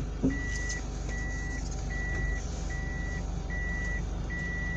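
Electronic reversing warning beeper sounding a steady series of evenly spaced high beeps, about six in all, over a low engine hum.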